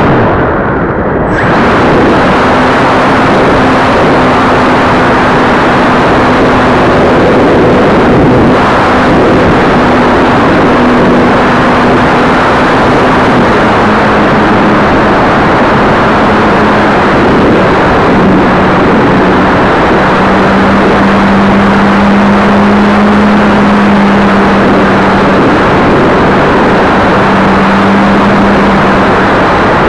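Onboard sound of a ParkZone F4U Corsair RC plane in flight: its electric motor and propeller buzzing steadily under a loud rush of wind. The hiss dips briefly about a second in. The motor's pitch steps down a little about halfway through and again a few seconds later.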